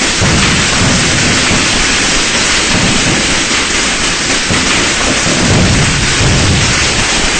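A dense, continuous barrage of firecrackers, the many crackles blurring into a loud hiss like heavy rain. Deep booms swell up every second or two.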